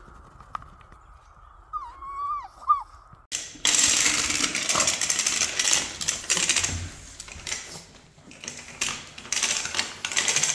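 A Boston terrier gives a short, faint whining cry that bends up and down. Then a dog chews and mouths a plastic toy: a loud, dense crackling crinkle in uneven bursts.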